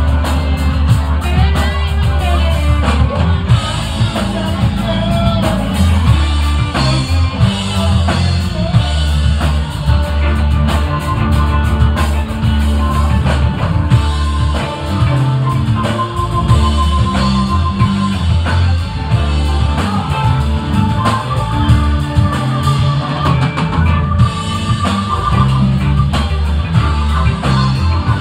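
A rock band playing live: drum kit and electric guitars, with a singer's voice over them, loud and steady throughout.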